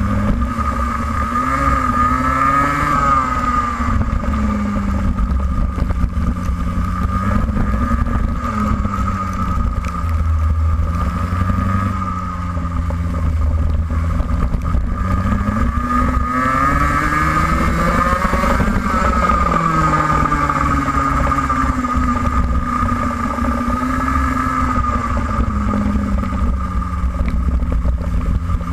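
Racing kart engine heard from onboard, its pitch rising as it accelerates out of corners and dropping back under braking several times, with a steady low rumble underneath.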